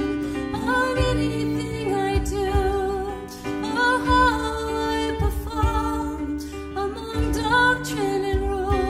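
Live band playing a slow contemporary worship song: drum kit hits, electric bass notes, and a wavering lead melody over chords.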